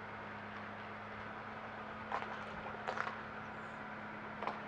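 A small boat motor humming steadily at low speed while the boat is edged into position. Short sharp scuffs or splashes come about two, three and four and a half seconds in.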